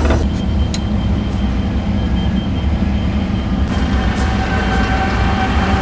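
Diesel engine of a Cat 308 mini excavator running steadily at a low, even rumble.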